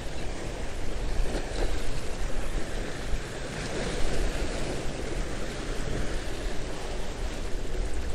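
Sea waves breaking and washing against the granite boulders of a jetty, with wind buffeting the microphone.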